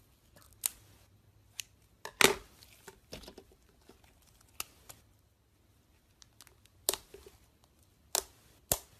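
Slime being squeezed and pulled by hand, giving a string of sharp, sticky pops and clicks at irregular intervals. The loudest comes about two seconds in, and a quick pair follows near the end.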